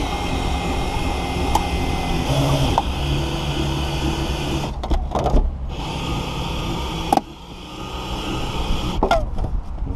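Power-driven windshield cutting-line winder whirring in spurts as it reels the wire or fibre line through the urethane bead holding the glass. It stops briefly about five seconds in, cuts out about seven seconds in, and starts again near the end.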